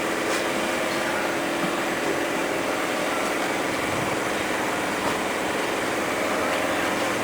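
Steady machine hum with a few steady tones, running evenly without change.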